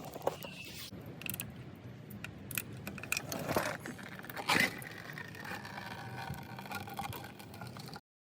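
Small car engine running at a steady idle, with scattered clicks and a few louder scraping, rattling handling noises around the middle.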